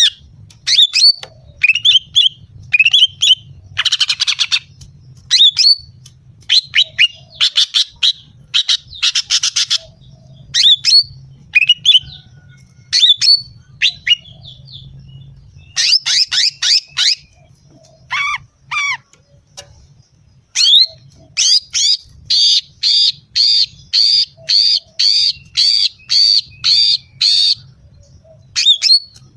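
Female cucak ijo (greater green leafbird) calling: a series of short, sharp, falling notes, a couple of fast buzzy trills, and near the end a steady run of repeated notes about two a second. These are the calls used as a lure to provoke a male cucak ijo.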